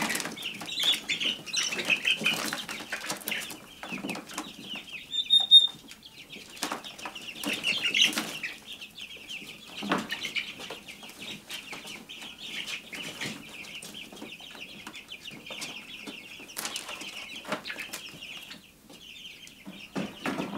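Young turkey poults peeping steadily in a brooder, with bursts of wing flapping and scuffling as birds are caught by hand. Scattered knocks and rattles from the wire lid and plastic tub.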